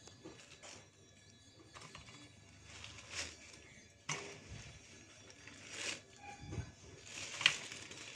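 Thin plastic carrier bag crinkling in several short bursts as raw fish pieces are taken out of it by hand, the loudest burst near the end.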